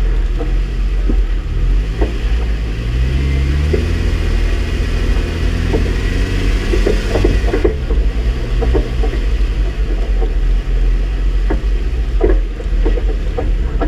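Jeep engine running at crawling speed off-road, revving up a few seconds in and easing back down later, with scattered knocks and clatters as the vehicle works over rough ground.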